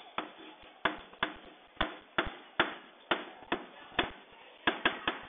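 Chalk writing on a blackboard: about a dozen sharp taps as the chalk strikes the board, roughly every half second, with faint scratching between strokes.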